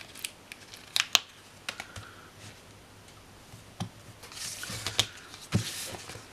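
Paper sticker sheets being handled while a small sticker is peeled and pressed onto a planner page: a couple of sharp clicks about a second in, then light rustling of the sheets near the end.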